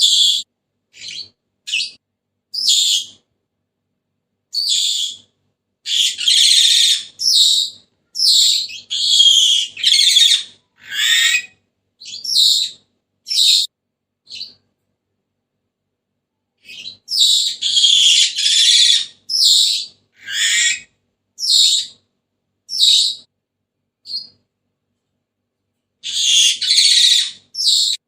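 Senegal parrot calling: a string of shrill whistles and harsh screeches, some short and some about a second long, with short gaps between them and a pause of about two seconds halfway through.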